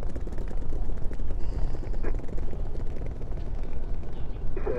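De Havilland Canada Beaver floatplane's radial engine running at low power as it taxis on the water: a low, uneven rumble.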